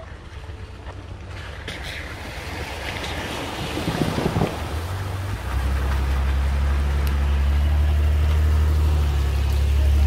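Four-wheel drive driving through a shallow creek crossing: water splashes around the wheels midway, then the engine rumble grows loud as the vehicle climbs out and passes close by.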